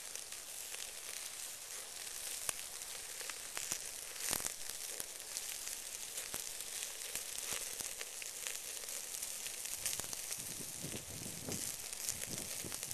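Wild hog ham sizzling on a small charcoal grill over hot coals as it is flame-braised, a steady hiss with scattered crackles and pops; one louder pop about four seconds in.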